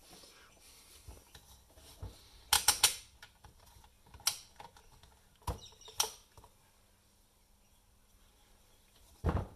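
Scattered clicks and knocks of a coffee grinder's parts being handled as it is taken apart: a quick cluster about two and a half seconds in, single knocks after, and one more near the end.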